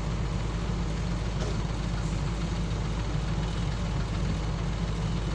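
Komatsu PC200 excavator's diesel engine running steadily, with the bucket of soil held raised over a dump truck.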